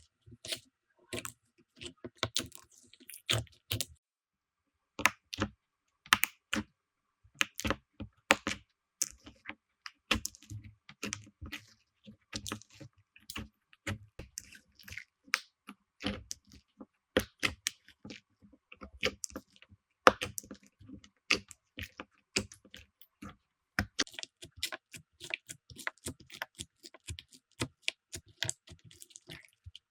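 Slime being pressed and squeezed by hand, giving an irregular run of sticky clicks and crackling pops that stops briefly about four seconds in.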